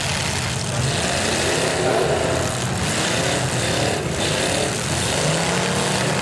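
Several demolition derby cars' engines running and revving together, their pitches rising and falling over one another, over a steady wash of noise.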